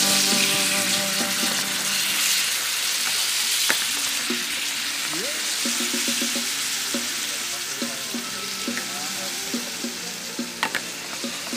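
Food frying in a pan, a steady sizzling hiss, with a couple of sharp clicks, one about four seconds in and one near the end.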